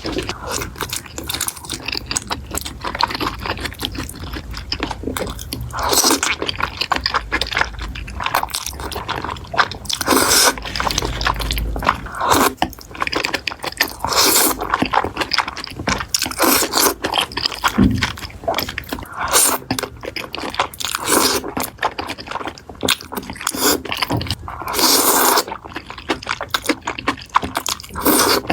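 Close-up eating sounds: continuous chewing and crunching with many small clicks and scrapes, and louder crunchy bites every few seconds.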